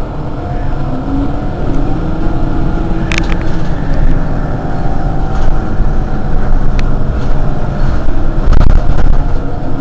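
Mercedes-Benz Citaro G C2 Euro 5 articulated bus's diesel engine idling at the rear of the bus, a steady low rumble, with a brief sharp click about three seconds in and a louder low surge near the end.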